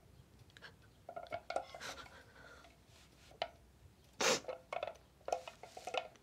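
A girl crying quietly: sniffles and shaky, sobbing breaths, some with a short whimper, and a sharper sniff or gasp about four seconds in.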